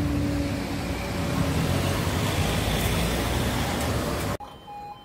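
Road traffic: cars drive across a level crossing close by, with engine and tyre noise. About four seconds in it cuts off abruptly, leaving a much quieter scene with faint short tones.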